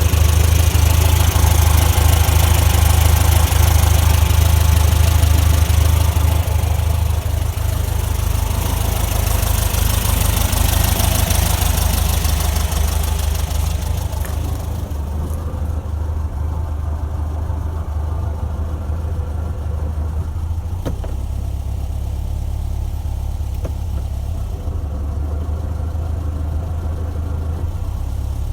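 1968 VW Beetle Autostick's air-cooled flat-four running, with a steady low drone and a loud hiss and whirr over it that fades away about halfway through. The noise is what the owner puts down to a noisy transaxle.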